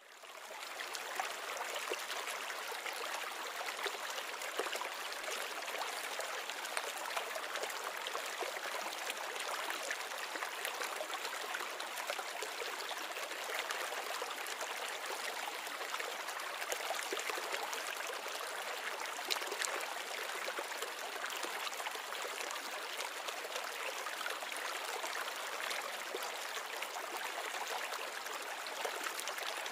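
Steady trickling and splashing of a reef aquarium's circulating water, fading in over the first second and then holding even.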